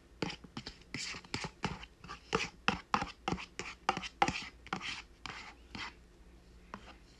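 Chopsticks knocking and scraping inside a paper instant-noodle cup as sauced jjajang noodles are scooped out onto a plate: a quick, irregular run of taps and scrapes that dies away about six seconds in.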